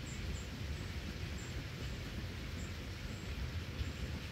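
Distant narrow-gauge steam train running past, heard as a low steady rumble mixed with wind on the microphone, with short high bird chirps every half second to a second.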